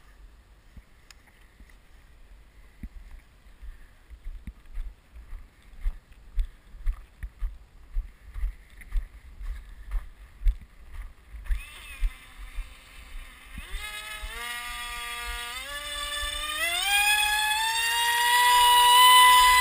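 Footsteps thumping about twice a second as the FunJet is carried over snow, then its electric pusher motor and propeller spin up about twelve seconds in, whining higher and louder in distinct throttle steps until it nears full power.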